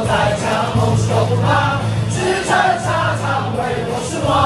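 Baseball crowd in the stands singing a cheer chant in unison to a steady beat.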